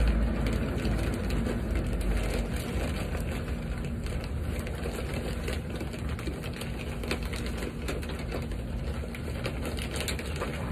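Potting soil pouring from a plastic bag into a plant pot, with the bag crinkling and a dense patter of small rustles and clicks, over a steady low rumble and faint hum.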